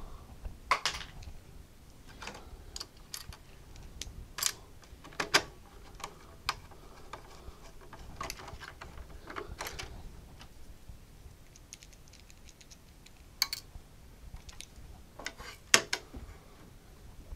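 Irregular small clicks and taps of hands handling metal shielding, connectors and wiring inside a Tektronix 468 oscilloscope chassis.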